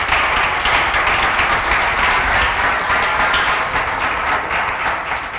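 Audience applauding, a dense patter of many hands clapping that begins to die down near the end.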